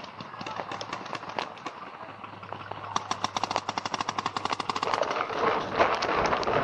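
Paintball markers firing: scattered single shots, then from about three seconds in a rapid, even string of shots lasting about two seconds.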